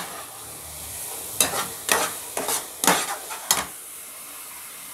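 A metal spatula stirring and scraping a thick milk-and-coconut paste in a non-stick kadai, cooking it down until it thickens. There is a run of sharp scrapes about every half second in the middle, over a low steady hiss.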